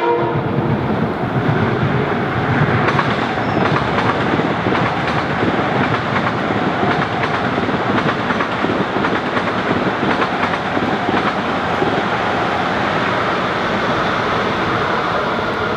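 A train running close by, loud and steady, its wheels clacking over the rails. The tail of its horn fades out right at the start.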